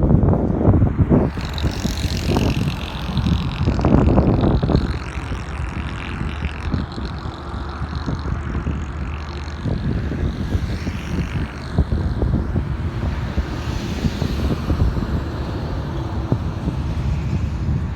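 Road traffic passing along a highway, with wind rumbling on the microphone; the traffic is louder for the first few seconds.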